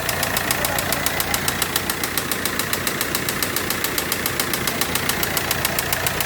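Audi Q3 diesel engine running with a steady, rapid knock, about eight sharp ticks a second. The mechanic suspects the knock comes from faulty injectors, one of which is not working at all.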